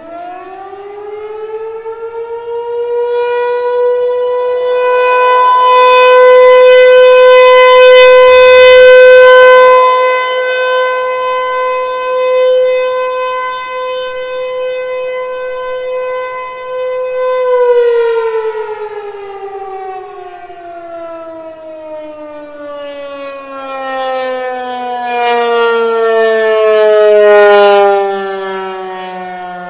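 ASC T-128 outdoor warning siren sounding its short-alert test. It finishes winding up in the first couple of seconds, holds a steady tone for about fifteen seconds while its loudness slowly swells and fades, then winds down with a long falling pitch.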